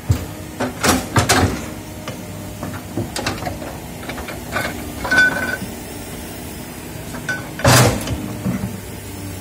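Komatsu hydraulic excavator's diesel engine running steadily while its bucket digs and scrapes soil and brush, with bursts of metal clanks and knocks from the bucket and linkage. The loudest clatter comes near the end, and a short squeak about five seconds in.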